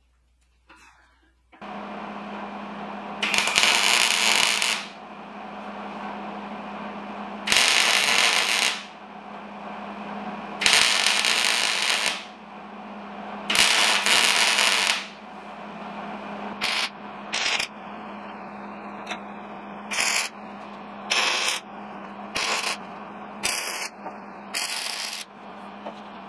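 Hobart wire-feed welder switching on with a steady hum about a second and a half in, then four welds of crackling arc, each about a second and a half long, followed by a run of shorter welding bursts. The welds join the edges of a stacked three-layer steel billet so it holds together for forge welding.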